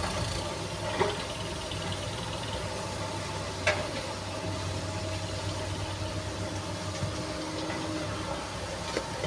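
Diesel engine of a SANY SY215C excavator running steadily, with two short sharp knocks, about a second in and a little before the middle.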